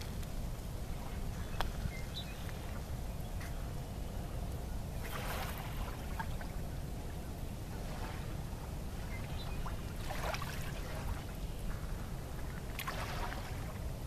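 Water lapping and sloshing against a concrete seawall, with about four soft splashes a few seconds apart, over a steady low rumble.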